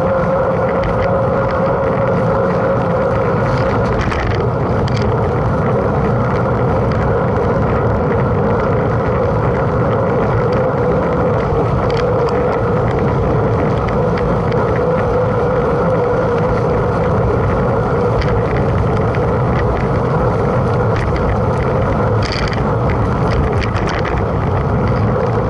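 Steady rush of a mountain bike ridden at speed: wind on the microphone and tyres rolling, with a few light clicks.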